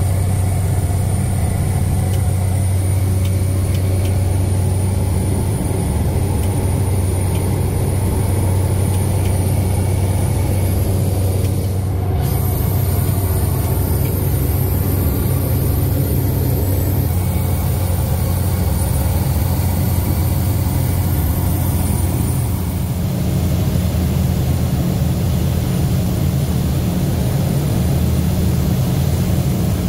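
Single-engine floatplane's engine and propeller droning steadily in flight, heard from inside the cabin. The tone shifts slightly twice, about 12 and 23 seconds in.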